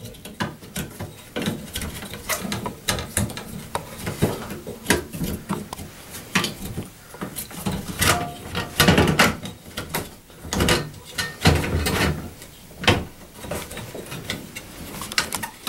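Irregular clicks, knocks and scraping of a bathroom exhaust fan's metal and plastic parts being handled while the replacement motor is fastened by hand.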